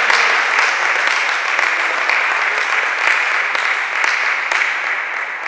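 Spectators applauding and clapping at the end of a table tennis point, a steady clatter of many hands that tapers off near the end.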